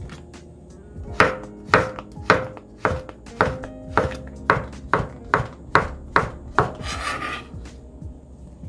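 Kitchen knife chopping on a cutting board: about a dozen even strokes, a little over two a second, followed by a short rasping scrape.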